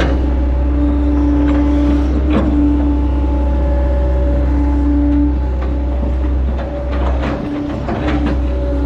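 Hitachi Zaxis 110 hydraulic excavator's diesel engine running under load, heard from the operator's cab, with a steady whining tone that comes and goes as the boom and bucket are worked. A few short knocks from the working gear, and a brief dip in the engine's low hum about seven seconds in as the machine swings.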